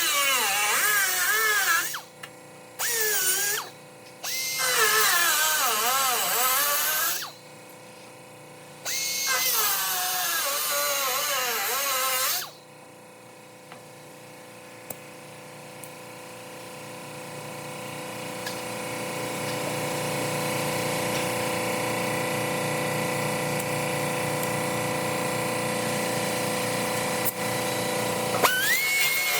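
A power cut-off tool cutting through the steel door skin to remove the original door-handle opening, in four bursts with a wavering whine as the wheel loads and frees in the metal. After that a quieter, steady machine hum slowly builds, and near the end the tool's whine rises as it spins up again.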